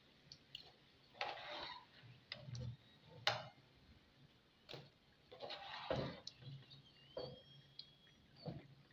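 Irregular light clicks and short crackling bursts from a pan of hot frying oil with freshly fried spring rolls draining in a wire spider strainer. The sharpest click comes about three seconds in.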